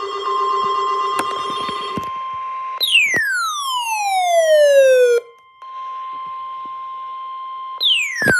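Steady high electronic alert tone near 1 kHz, typical of the NOAA Weather Radio 1050 Hz warning alarm. Twice it is overlaid by a loud siren-like sweep that falls steeply in pitch over about two and a half seconds and cuts off abruptly, with a brief drop to near silence between the two sweeps.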